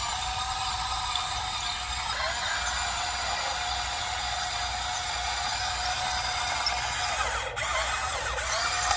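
Small electric motors and gearboxes of a radio-controlled toy construction vehicle whirring in a steady whine. The pitch dips briefly about two seconds in and wavers again near the end.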